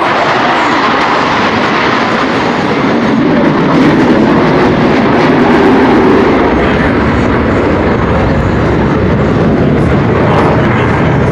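Loud, steady engine noise from an aircraft flying over, with no breaks. The low rumble grows stronger from about three seconds in.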